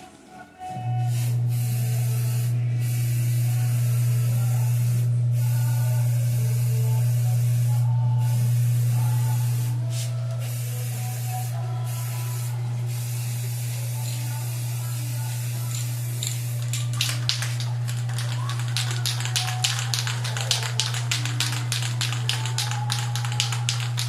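Electric paint spray gun running: a loud, steady low buzz with the hiss of spraying paint, which breaks off briefly a few times. From about two-thirds of the way through, rapid irregular clicking joins it.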